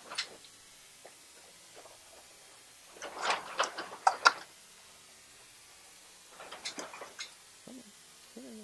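Hand tools and small parts clicking and rattling as they are handled on a paramotor engine: a single click at the start, a burst of sharp clicks about three seconds in, and a shorter, quieter burst past the six-second mark.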